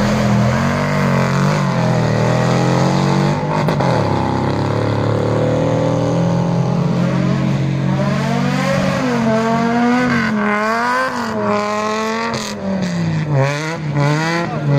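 Off-road race vehicle engine revving hard over a rough dirt track. Its pitch climbs and drops slowly at first, then rises and falls about once a second from the middle on, with quick throttle blips near the end.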